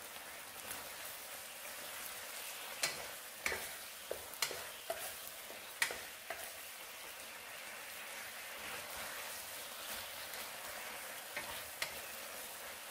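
Baby bok choy and garlic frying in a stone-coated nonstick wok with a thin cornstarch sauce, a steady gentle sizzle. The spatula taps and scrapes against the pan several times, mostly about three to six seconds in.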